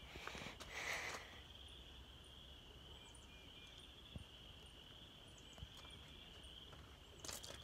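Faint, steady, high-pitched trilling of insects, with a short rustle about a second in.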